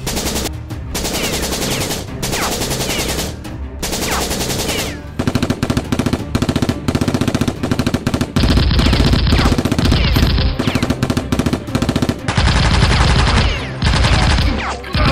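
Automatic gunfire sound effects laid over a Nerf blaster fight: repeated bursts of rapid shots, running on without break and growing louder and heavier from about halfway through.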